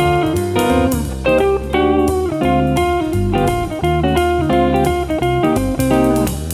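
Instrumental background music led by guitar, with a bass line and a steady rhythm.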